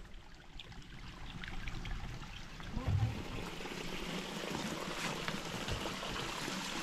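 Spring water running and trickling. It grows fuller about two seconds in and stays steady from about four seconds, with a dull thump near three seconds.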